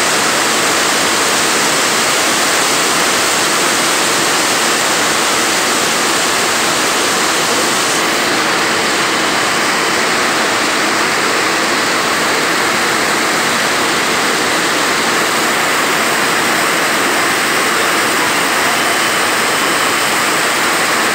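Heavy rain pouring down in a steady, loud, even hiss.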